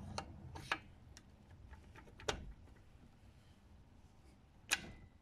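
Faint, scattered metal clicks and taps as a steel shift fork rod is slid through the shift forks into an aluminium motorcycle crankcase half, with about five separate clicks. A louder click near the end rings briefly.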